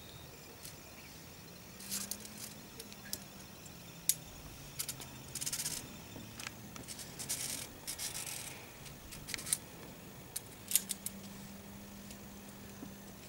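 Climbing gear handled on the move: scattered sharp metallic clicks and jangles, with a few short scuffing scrapes about five and seven to eight seconds in.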